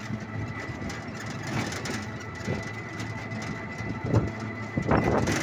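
Riding in a small open vehicle: steady engine and road noise with a thin, steady high whine, and a few louder rattling knocks about four and five seconds in.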